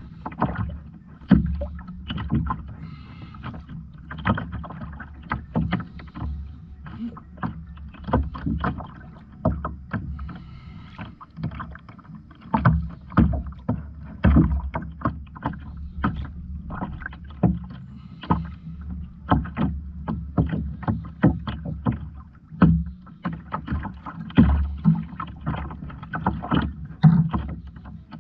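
Water slapping and knocking against a fishing kayak's hull: irregular sharp taps several times a second over a steady low rumble.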